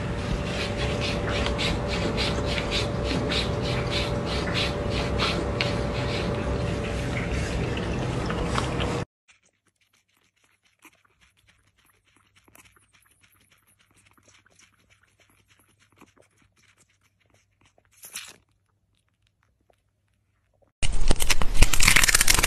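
A cat lapping water from a drinking glass, a quick run of wet laps at about four a second over a steady hum. It cuts off suddenly about nine seconds in, leaving near silence with a few faint ticks. A loud noise starts near the end.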